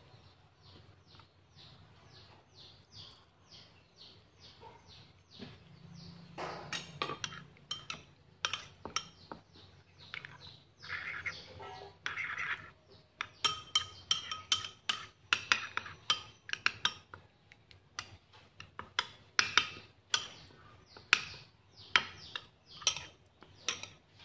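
Metal spoon stirring a thick dipping sauce in a ceramic bowl: soft, even strokes about two or three a second, then from about six seconds in, louder clinks of the spoon against the bowl.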